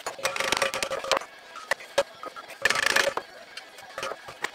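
Rivet squeezer closing rivets through the butt strip of a copper model boiler barrel: two bursts of noise about a second long, one at the start and one about two and a half seconds in, with light metal clicks between.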